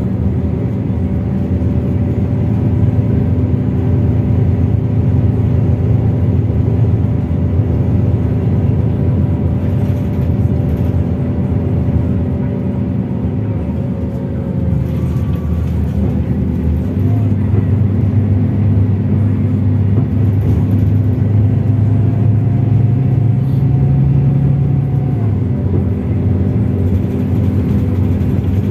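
Scania DC12 diesel engine of a Scania K380IB bus running steadily. Its note changes about halfway through, and a faint whine rises slowly before dropping away a few seconds before the end.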